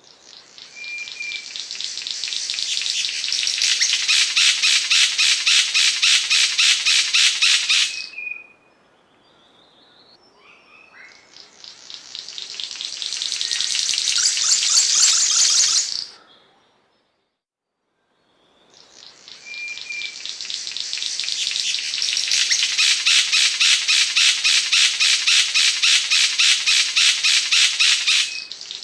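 Cendrawasih panji songbird singing: long, rapid, rasping trills of evenly repeated notes that build in loudness over a few seconds, three times with short silent pauses between, each preceded by a brief short whistle.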